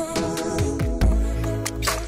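Outro music: sustained chords with drum hits, and a deep bass that comes in about a second in.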